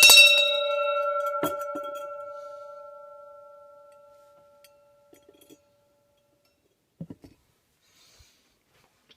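A small metal bell struck, its ring fading away over about five seconds, followed by a few soft knocks.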